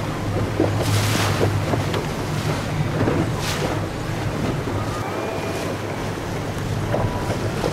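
A small boat's engine runs with a steady low hum while water washes against the hull, with two louder splashes about a second in and again a couple of seconds later. Wind buffets the microphone.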